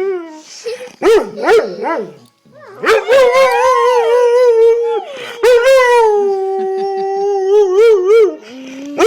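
German Shorthaired Pointer howling: short wavering howls about a second in, then two long drawn-out howls, the second wobbling in pitch near its end.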